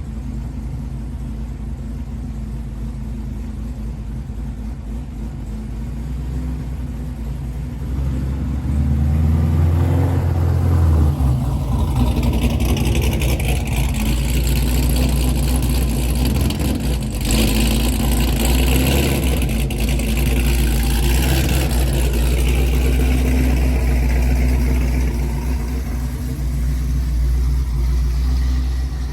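Chevrolet Camaro ZL1's supercharged V8 running: a steady idle that grows louder about eight seconds in and stays up for most of the rest, easing off near the end.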